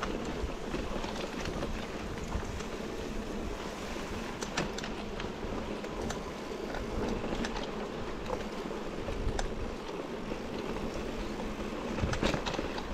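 Mountain bike riding over a grassy track: a steady rush of tyres rolling through grass and wind on the microphone, with scattered short ticks and rattles from the bike jolting over the rough ground.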